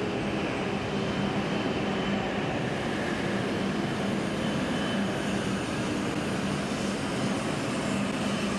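W7 series Shinkansen train humming steadily: an even rushing noise with a constant low tone, no change in level.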